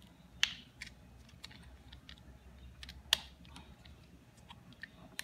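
Light plastic clicks and taps from the white plastic trigger-switch housing of a Kärcher K2 pressure washer being handled and fitted together by hand, with two sharper clicks, about half a second in and about three seconds in.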